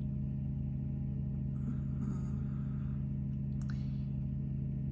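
Steady low hum made of two held tones, with a faint rustle about two seconds in and a light click near four seconds.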